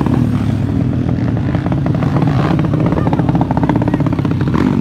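Dirt-track racing motorcycle engines running loud and steady with a fast, even pulse, one bike passing close by.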